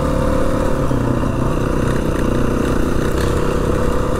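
Adventure motorcycle engine running steadily as the bike is ridden along.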